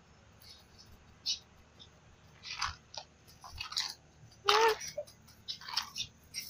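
Two small dogs play-fighting: scattered scuffling and biting sounds, with one short rising cry about four and a half seconds in.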